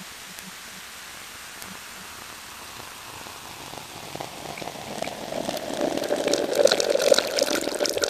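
Noisy experimental music: a steady hiss, then from about halfway a crackling, gritty texture that swells in loudness.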